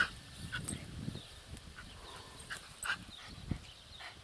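Small dog whimpering and giving short yips, several brief separate sounds, mixed with a few soft low thumps.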